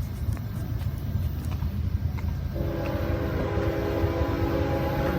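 A multi-chime train horn sounds a steady chord of several tones. It starts about halfway in and is held for about two and a half seconds, over a steady low rumble.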